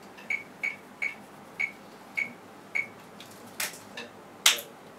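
About six light, unevenly spaced ticks, each with a short high ping, followed near the end by two loud hand claps.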